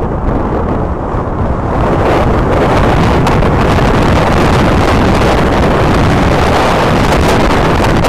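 Storm wind buffeting the nest camera's microphone: a loud, steady rushing that swells about two seconds in and stays strong.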